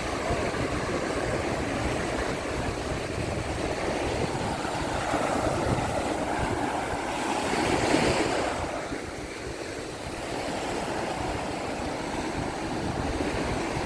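Surf washing onto a sandy beach, with one wave breaking louder about eight seconds in, and wind buffeting the microphone.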